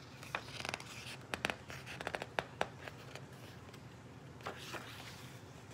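Paper pages of a hardcover picture book being handled and turned by hand: a run of short crisp rustles and ticks in the first three seconds, then a couple more later on.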